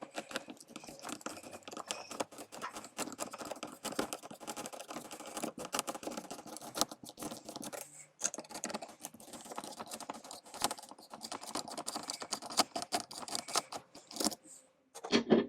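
A screwdriver unscrewing the fixing screws of a motorhome ceiling light: rapid, irregular clicking and scraping of metal on screws and plastic, pausing briefly twice, with a louder burst of clicks at the end.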